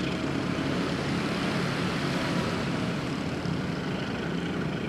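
A commuter train rolling along a curved track, a steady rumble of wheels on rails.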